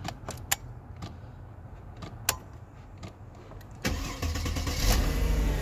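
A few light clicks, then about four seconds in the 2005 Mercedes-Benz CLK 320's V6 engine starts and settles into a steady run: the newly programmed key is accepted.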